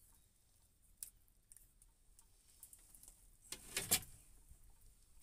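Faint clicks and rustles of a hook and feather rig being worked free of a small pollock's mouth by hand, with a louder brief rustle about three and a half seconds in.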